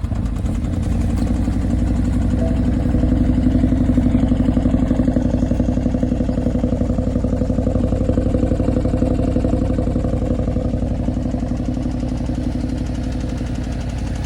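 BMW X6 engine running just after catching from a start, with a steady, rapid knock through the idle: the knock the car is known for. It swells a little over the first few seconds, then eases slightly.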